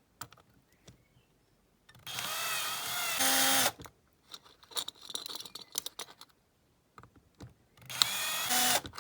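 Small electric drill drilling out the rivets of a diecast toy car's base, in two short runs: one of about two seconds whose pitch wavers as the bit bites, then a shorter one near the end. Light clicks and scraping come between the runs.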